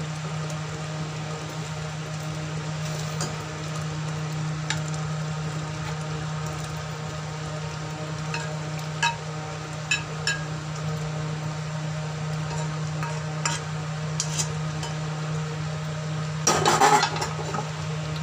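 Wooden spatula stirring fried mushrooms and capsicum into a thick gravy in a metal pan, with scattered light knocks of the spatula against the pan over a steady low hum. A louder clatter comes near the end.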